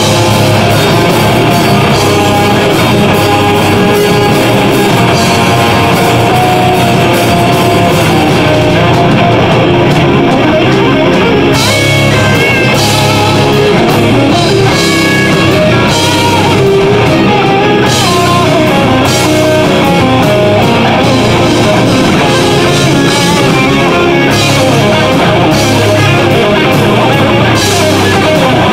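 Live progressive metal band playing: distorted electric guitars, bass guitar and a drum kit, with cymbal hits coming through more strongly from a little before halfway.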